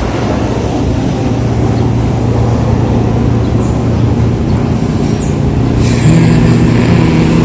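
Road traffic on a quiet street: steady motor-vehicle engine and road noise. It grows a little louder about six seconds in as a layered engine sound comes close.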